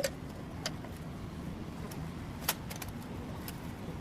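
A vehicle engine running steadily with a low hum, with a few sharp metallic clicks and clinks over it.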